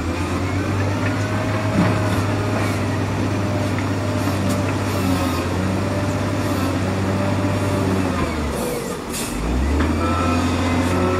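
Wheel loader's diesel engine running hard as the loader pushes a heap of rock and dirt with its bucket; the engine note drops away briefly about three-quarters of the way through, then picks back up.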